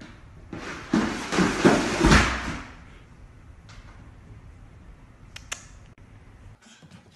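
A plastic laundry basket carrying a cat sliding and bumping down wooden stairs: a rushing, scraping clatter of about two seconds with several thumps, stopping suddenly. A few faint clicks follow.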